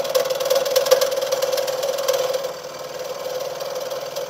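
Scroll saw running, its reciprocating blade cutting through plywood with a rapid, steady buzz. About two and a half seconds in it gets quieter.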